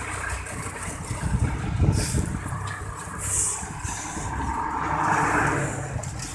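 Road traffic and the running engine of the vehicle carrying the camera, a steady low rumble heard while travelling along a road. It swells briefly about five seconds in as traffic goes by.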